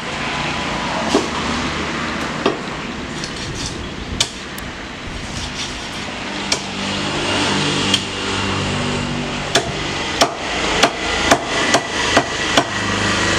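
Large knife chopping through fish onto a thick wooden block: single sharp chops every second or two, then a quick run of about seven chops near the end.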